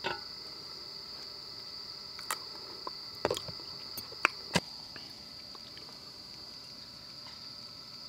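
Crickets chirring steadily in one high, even tone, with a handful of sharp clicks from metal chopsticks against a grill pan and tableware; the two loudest come just past four seconds in.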